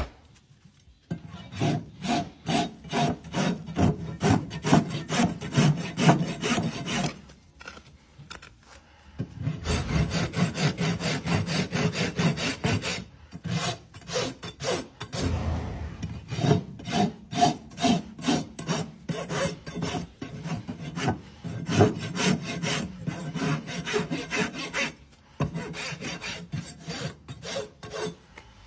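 Farrier's rasp filing a horse's hoof: quick, regular scraping strokes in runs of several seconds, with short pauses between the runs.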